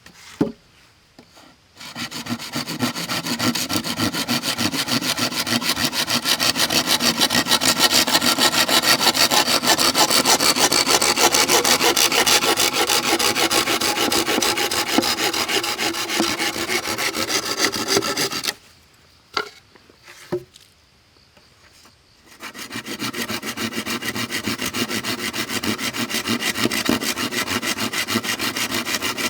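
A hand tool scraping on wood in rapid, even strokes, stopping for a few seconds in the middle with two short knocks and then starting again.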